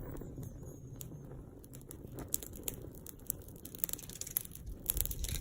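Small campfire of sticks and birch bark crackling, with sharp snaps and pops coming thicker from about two seconds in, over a low rumble of wind on the microphone.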